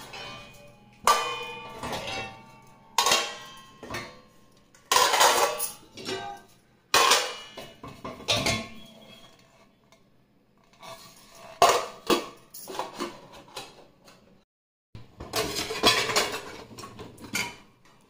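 Stainless steel plates and utensils clanking and ringing as they are lifted out of a dishwasher rack and stacked, in a string of separate clatters with short pauses between them.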